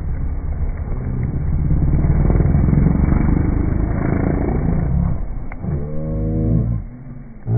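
Snowmobile engine running hard with a loud, rough rumble as the sled goes over in a spray of snow; it fades about five seconds in. Near the end comes a drawn-out, pitched cry that bends up and then down for about a second.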